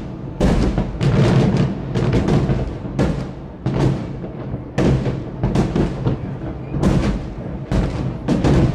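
Aerial fireworks shells bursting: a rapid, irregular run of loud, deep booms, about one to two a second, each trailing off before the next.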